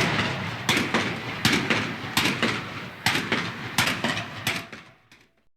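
Battle ambience: a string of separate gunshots, roughly one every three-quarters of a second, over a continuous noisy din of combat. The whole sound fades out and stops about five seconds in.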